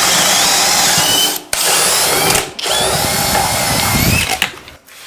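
Cordless hammer drills, a DeWalt FlexVolt DCD999 and a Flex 24V turbo drill, boring 1-1/4-inch auger bits through a wooden beam, with the motors running hard under heavy load and the wood chips tearing. The sound cuts out briefly twice and dies away near the end as the boring finishes.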